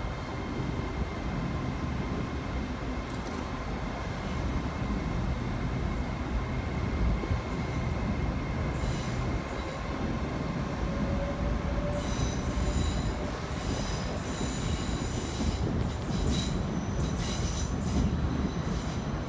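LNER Azuma passenger train running out along the platform road with a steady low rumble and a faint steady whine. High-pitched wheel squeal comes and goes in the second half.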